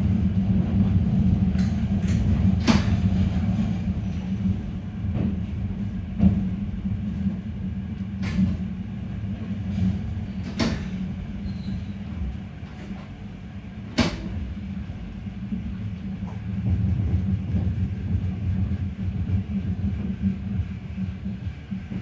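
Toyama Chihō Railway 10030-series electric train heard from inside the cab as it slows into a station and stops. A low, steady rumble grows quieter as the train loses speed, and a few sharp clacks of the wheels over rail joints come through along the way.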